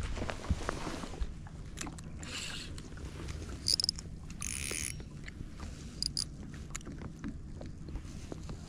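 Spinning reel being cranked as a hooked fish is reeled in on light braided line, with a few short hissing bursts in the middle over a steady low hum.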